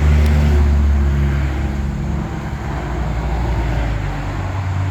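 A car engine running, a steady low hum with a few pitched tones, slightly louder in the first second.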